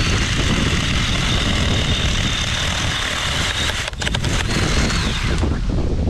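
Milwaukee Hatchet cordless pruning saw running with a steady high whine as it cuts through an aspen limb, with a few sharp cracks about four seconds in as the limb gives way. The motor winds down and stops near the end.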